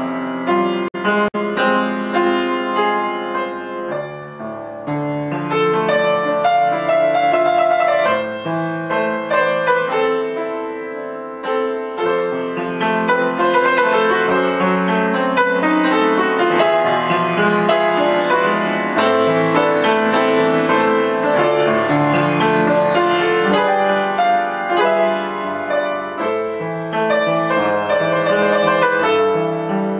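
Solo piano music playing continuously, notes struck in flowing runs and chords.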